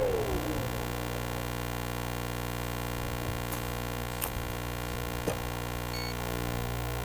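Steady electrical hum made of several fixed tones, with a few faint ticks. The landed hexacopter's motors finish winding down in the first half second.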